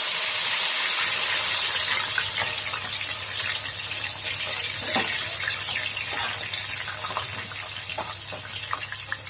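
Onion and garlic paste sizzling in hot mustard oil in an iron kadhai: a dense hiss with scattered crackles that slowly dies down.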